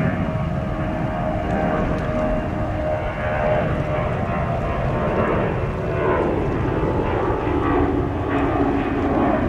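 Jet airliner engines running loud and steady, a dense noise with a whine of several tones through it.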